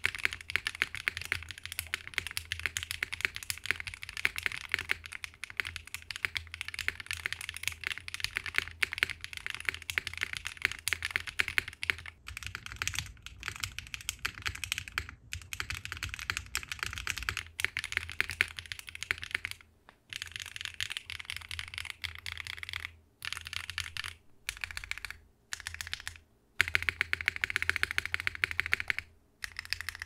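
Fast typing on a Mode SixtyFive mechanical keyboard fitted with pre-lubed HMX Gachapon linear switches (fiberglass-rich nylon bottom housing): a deeper keystroke than a typical clacky HMX switch, with a slightly bright bottom-out. The typing is steady at first, then comes in short runs with brief pauses during the second half, and for a stretch in the middle it is heard through an iPhone microphone.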